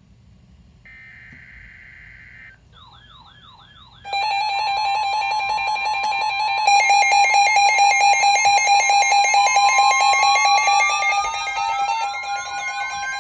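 Electronic emergency-alert tones. A short burst of screechy data-like tone comes about a second in and a brief warbling tone near three seconds. From about four seconds a loud, dense layering of pulsing, beeping alarm tones begins, with one tone rising slowly in pitch toward the end.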